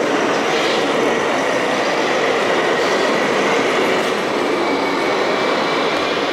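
Radio-controlled model construction vehicles running: a steady mechanical whir and rattle of small electric motors and gearboxes, with a faint thin whine.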